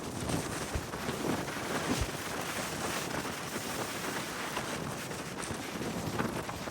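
Strong wind blowing over the microphone as a steady rushing noise, with a low buffeting thump about two seconds in.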